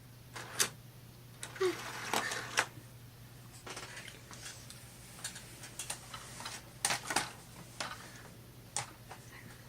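Plastic Lego pieces and minifigures clicking and rattling as they are handled, in a scatter of short, irregular clicks.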